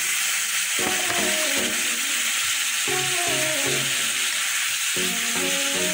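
Pork pieces sizzling steadily as they fry in an aluminium pot, with freshly added chopped green bell pepper. A melodic background music line plays over the sizzle in short phrases.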